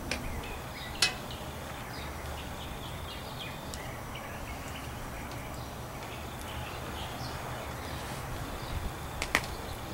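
Outdoor background: a steady low hum with faint bird chirps, and two sharp clicks, one about a second in and one near the end.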